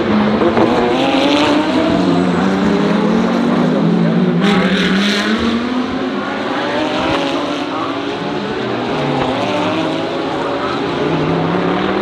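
DTM GT3 race cars running at racing speed, their engine notes climbing and dropping through the gears, several engines overlapping. There is a sudden loud burst about four and a half seconds in.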